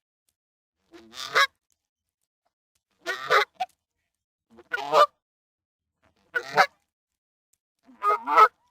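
Goose honking: five short, harsh honks, each about half a second long, spaced roughly one every one and a half seconds with silence between.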